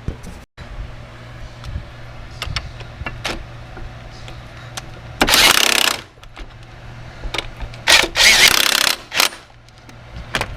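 Impact wrench hammering in two bursts, one of about half a second and one of about a second, tightening bolts. Sharp clicks and knocks of tools are heard around them.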